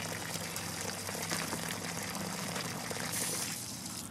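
Water running steadily through a garden hose hooked to the well's hose bib, flushing the well. It drops away sharply at the very end.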